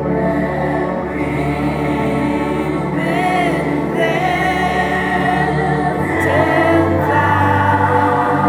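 Background music: a choir singing long held notes with vibrato over a sustained low accompaniment, the chord shifting about six seconds in.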